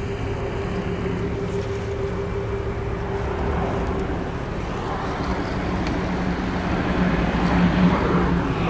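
Canal tour boat under way: its engine gives a steady hum over the rush of water and wind, getting a little louder in the last couple of seconds.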